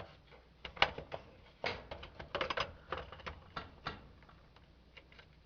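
Irregular clicks and rattles of a loose plastic stove display panel being handled, its mounting tabs broken off. The sharpest click comes about a second in, and the clicking dies away after about four seconds.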